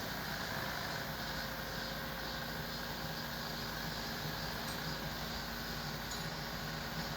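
An engine running steadily, a heavy vehicle or machine idling, with a faint steady hum.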